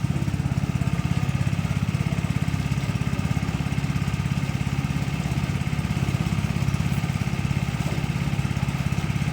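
Small engine-driven machine running steadily at constant speed, with a fast, even pulse.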